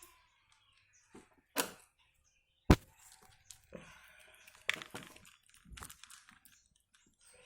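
A few sharp knocks and clicks of a spoon against a food dish, the loudest about two and a half seconds in, with small ticks and faint scraping between, as cat food is stirred and mixed.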